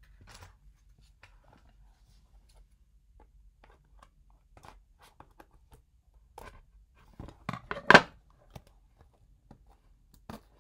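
Scissors snipping and cutting the plastic shrink-wrap seal off a small cardboard box, with faint crinkling of the plastic in between. The clicks and rustles are scattered, with a louder cluster of sharp snips and crinkles about three quarters of the way through.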